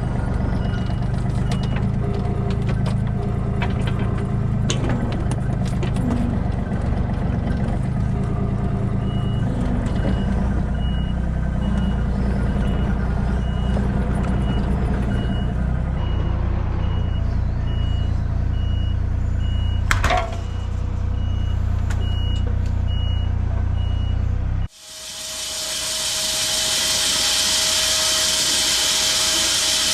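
A vehicle engine running steadily, with a reversing alarm beeping at an even pace for much of the middle and one sharp knock about two-thirds of the way in. Near the end it cuts abruptly to a loud, steady hiss.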